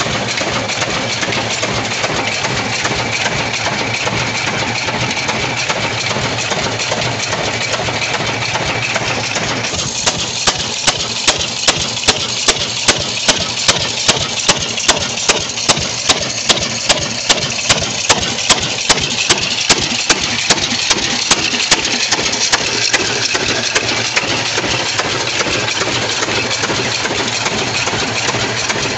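Ruston Hornsby single-cylinder horizontal diesel engine running steadily at idle. From about ten seconds in until about twenty-two seconds, a sharp regular beat stands out about twice a second.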